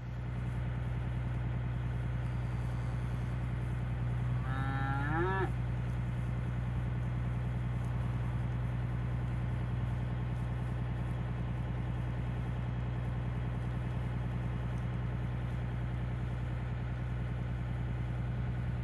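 One cow in a herd of beef cattle moos once about four to five seconds in, the call rising in pitch. Under it a vehicle engine idles with a steady low hum.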